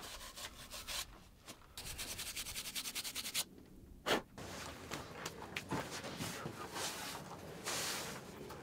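Rubbing and scrubbing sounds: scattered scuffs, then a quick even run of scrubbing strokes, about nine a second, lasting a second and a half from about two seconds in, and a single sharp knock a little after four seconds.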